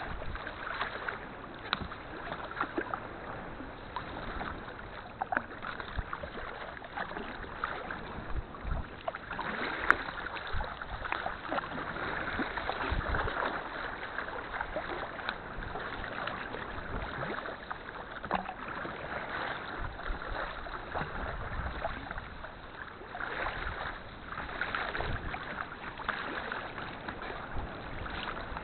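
Sea water splashing and lapping around a kayak, with irregular small knocks and splashes.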